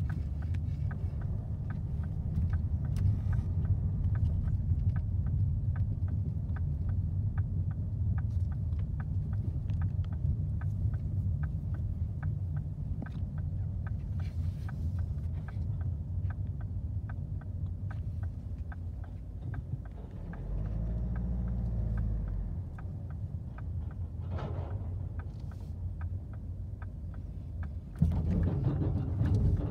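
Low engine and road rumble heard inside a car crawling along in a queue. A louder spell comes about two-thirds of the way through. Near the end the noise jumps up suddenly as the car rolls onto the ferry's loading ramp.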